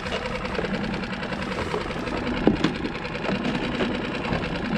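Small boat motor idling steadily with a fine even rhythm, with a couple of short knocks from gear being handled on the skiff about halfway through.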